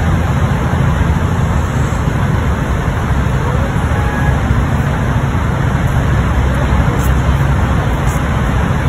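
Steady road traffic noise: a constant low engine rumble under an even wash of road noise, with no separate events standing out.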